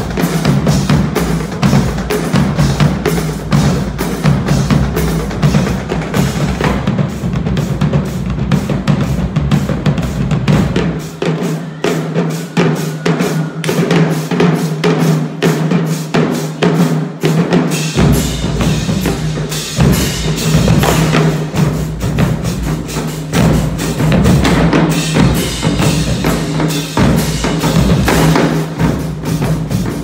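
Marching drumline playing a fast cadence on snare drums, tenor drums and bass drums, with cymbals. The bass drums drop out for several seconds about a third of the way in, then come back in, with more cymbal shimmer in the second half.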